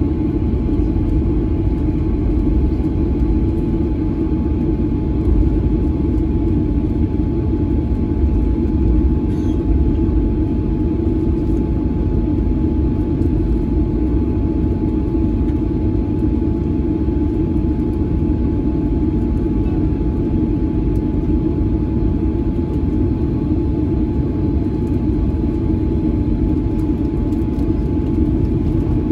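Cabin noise of a Boeing 737-900 taxiing: a steady low rumble of the engines at idle and the wheels rolling over the taxiway, with a faint steady hum over it.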